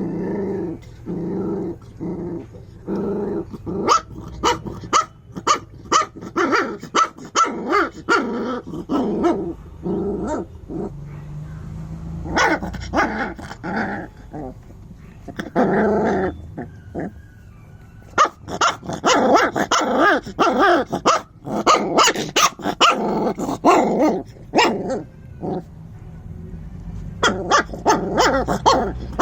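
A puppy growling and barking in short, rapid series, with stretches of continuous growling between bursts of barks.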